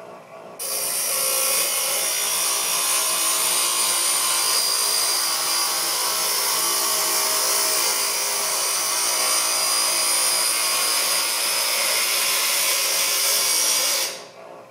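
Bench grinder wheel grinding a bevel onto the edge of 1/8-inch hot-rolled steel: a loud, steady, high-pitched grind that starts suddenly about half a second in and stops near the end.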